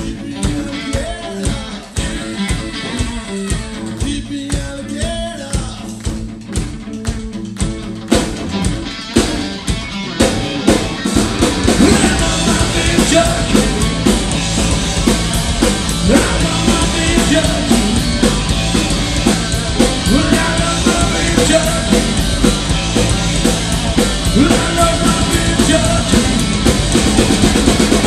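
Hard southern rock band playing live: electric guitar over drums, the whole band building and coming in louder about ten seconds in.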